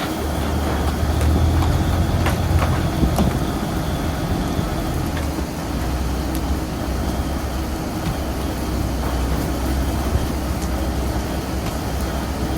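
Fishing boat's engine running steadily, with wind and sea noise and a few short knocks in the first few seconds.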